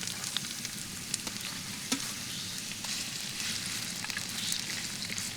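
Chopped onions and green chillies sizzling in hot oil in a pan: a steady frying hiss full of small crackles, with a few sharp clicks.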